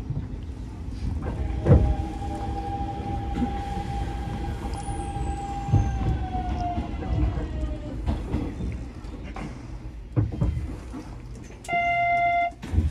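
Hanshin 9000-series electric train's inverter and traction motors whining steadily as it brakes into a station, the whine falling in pitch about six seconds in as the train slows to a stop, with a few dull thumps along the way. Near the end comes a short, steady electronic beep of under a second.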